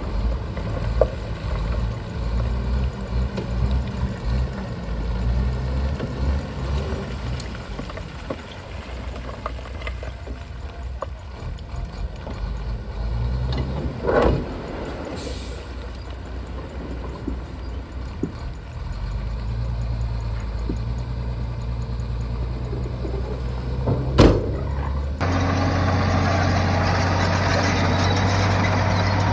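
Shantui bulldozer's diesel engine running, its low note rising and falling as it works, with a short sharp sound about halfway through and another shortly before the sound changes abruptly to a louder, steadier engine drone near the end.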